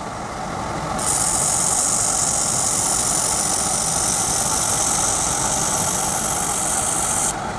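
Laser welding equipment running with a steady low rumble. A loud high hiss starts about a second in and cuts off shortly before the end.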